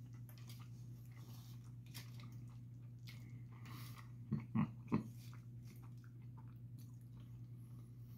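A person chewing a mouthful of cheeseburger, with faint soft mouth clicks over a steady low hum. About four seconds in come three short hummed noises of enjoyment.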